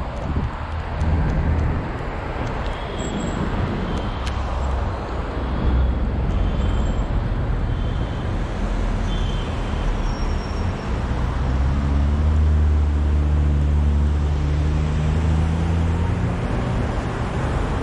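City street traffic, with cars passing on the road. For several seconds in the second half, the low steady hum of a vehicle engine running close by stands out above the traffic.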